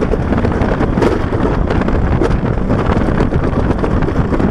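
Wind buffeting an action camera's microphone over the rumble of a summer toboggan sled running fast down a stainless-steel trough, with a few knocks from the sled in the track.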